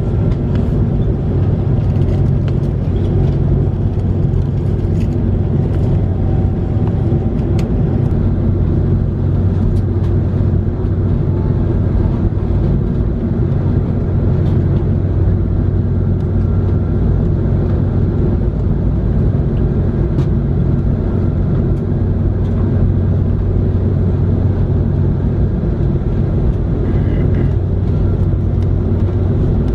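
Steady drone of an Airbus A330-300 heard inside the passenger cabin: the engines run at constant thrust with a low hum and a rush of air, and a few faint ticks of cabin noise.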